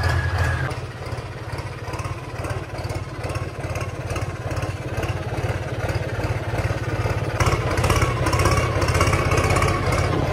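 Tractor diesel engine running steadily at low revs, growing a little louder with a higher whine about seven seconds in.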